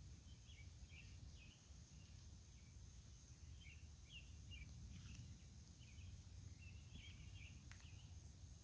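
Faint outdoor night ambience: scattered short high chirps, a steady thin high-pitched insect buzz, and a low distant rumble underneath.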